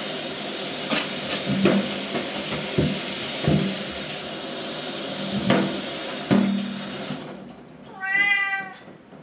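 A kitchen tap runs with a steady rush, with several sharp knocks and clatters over it, until the water shuts off about seven seconds in. Near the end, a domestic cat gives one drawn-out meow.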